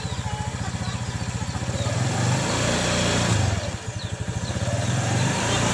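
Motorcycle engine idling with a steady low putter, revving up a little about two seconds in and again near the end as the front wheel rolls forward over a pile of bananas.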